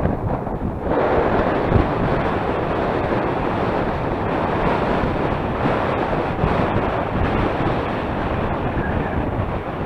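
Strong hill wind buffeting the microphone: a steady, rumbling rush with no break.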